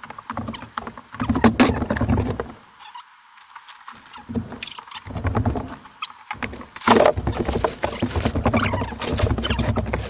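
Fast-forwarded drywall work: a rapid, irregular jumble of clicks and knocks, with a louder knock about seven seconds in.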